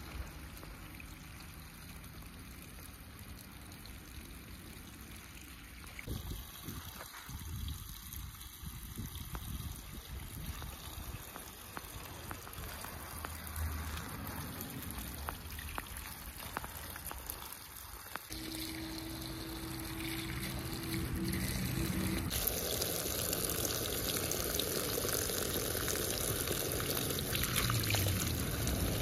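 Scattered small taps and clicks, then about two-thirds of the way in a steady sound of running water starts, and it grows louder a few seconds later.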